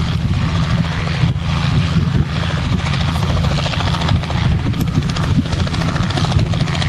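Robinson R44 Clipper II helicopter hovering low, its rotor beating rapidly and steadily over the piston engine's low rumble.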